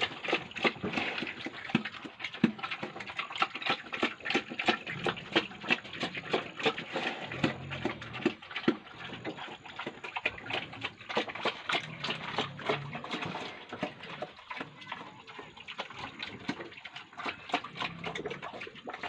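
Pigs eating wet feed: rapid, continuous smacking and slurping chews, with a few short low grunts now and then.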